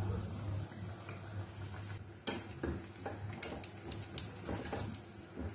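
Wire skimmer tapping and scraping against an aluminium kadai as mathri are turned in hot frying oil: a series of light metallic clicks starting about two seconds in. Under them are the soft bubbling of the oil and a low steady hum.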